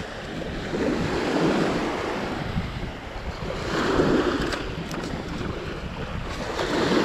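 Small waves breaking and washing up a sandy beach, swelling and fading about every three seconds, with wind rumbling on the microphone.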